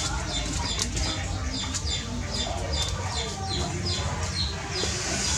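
A small bird chirping: a rapid series of short, high chirps, each sliding downward, about three a second, over a steady low rumble.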